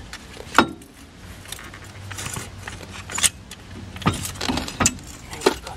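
Irregular metallic knocks and rattles as a reciprocating saw's blade is set against the steel clevis and seized clevis bolt of the lower control arm, with the sharpest knock about half a second in and more near the end.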